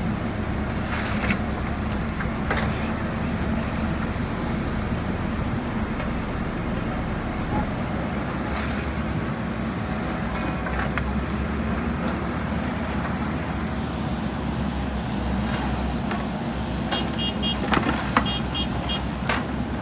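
JCB backhoe loader's diesel engine running steadily under load, with a few sharp knocks. A short run of high, evenly spaced beeps comes near the end.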